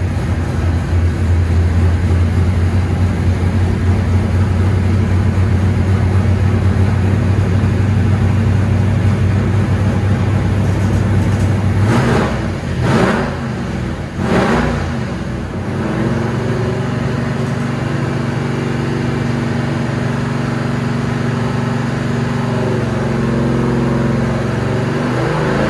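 Chevrolet LT1 383 stroker small-block V8 running on an engine dyno, held at a steady speed, then revved up and back down two or three times in quick succession about twelve seconds in, before settling into steady running again.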